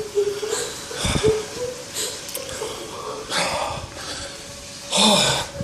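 Several hard, breathy breaths from a person, with a thin steady whine in the first couple of seconds.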